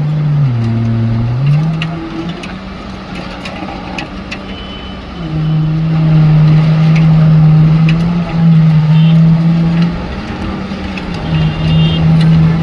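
Diesel engine powering the concrete pump and boom placer, running under load with a steady hum. Its pitch dips briefly about a second in, it eases off for a few seconds, then runs louder from about five seconds in. Scattered clicks and knocks sound over it.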